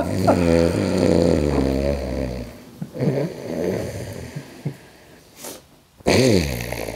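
A man snoring loudly: one long drawn-out snore at the start, then quieter snores, and another loud one about six seconds in.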